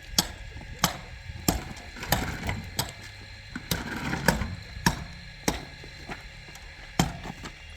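Hand-tool work: sharp knocks repeating about every two-thirds of a second, pausing briefly near the end, with a stretch of scraping in the middle.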